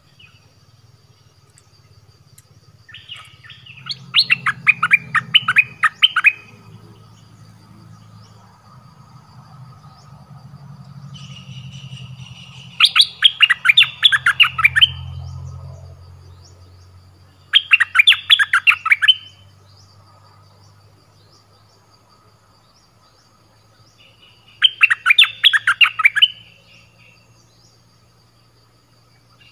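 Caged bulbul-type songbirds ('nok dok taeng') calling in a trap cage: four loud bouts of fast, sharp chattering notes, each lasting one to three seconds with pauses between, a fierce-sounding territorial call.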